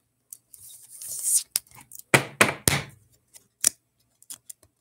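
A trading card being slid into a rigid clear plastic top loader: a scraping slide about a second in, then several sharp plastic clicks and taps as card and holder are handled.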